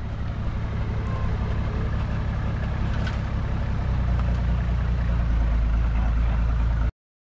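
Toyota 80 Series LandCruiser's engine running steadily at low revs under load as the 4x4 crawls slowly up a rock step. It grows a little louder in the second half, then cuts off suddenly near the end.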